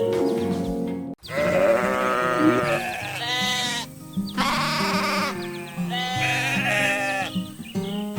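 Background music with a farm animal bleating about four times in long, wavering calls. The sound drops out briefly about a second in.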